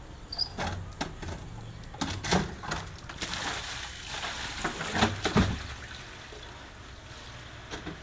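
An empty refrigerator body used as a fish tank clunks and scrapes as it is tipped upright from its wheeled cart. The loudest knocks come about two and five seconds in.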